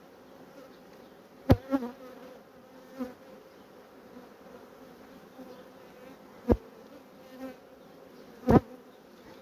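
Honeybees humming steadily in an opened hive, with four sharp wooden knocks and clicks, the loudest about a second and a half in and near the end, as a brood frame is pried loose with a hive tool and lifted out.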